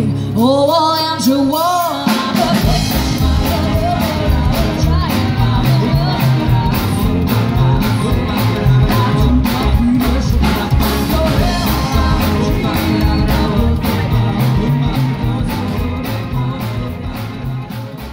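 Live rockabilly band playing with a voice singing over it: electric guitar, saxophone, upright bass and a driving drum kit. The music fades out near the end.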